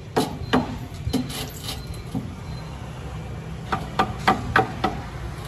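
Hammer knocking on a decorative trim strip being fixed to a concrete column: a loose series of sharp knocks, then a quicker run of five about four seconds in. A steady low rumble of traffic runs underneath.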